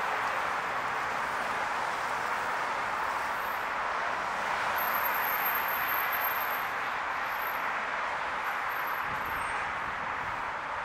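Steady noise of multi-lane highway traffic, the tyres and engines of many cars passing below blending into one continuous wash that swells slightly about halfway through.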